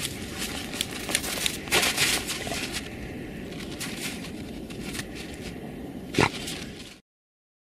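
Dogs digging in snow: paws scraping and crunching through snow and frozen ground in a steady crackly run, with a sharp louder scrape about six seconds in. The sound stops abruptly near the end.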